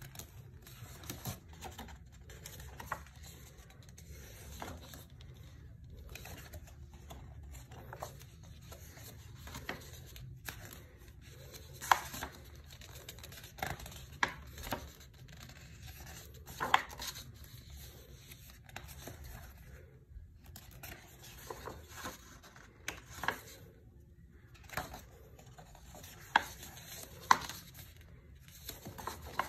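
Heavy-stock paper pages of a coloring book being turned by hand: soft rustling, broken by a sharp snap each time a page flips over, several times.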